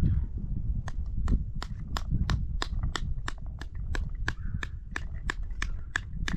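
A run of sharp, evenly spaced clicks or taps, about three a second, starting about a second in, over a steady low rumble.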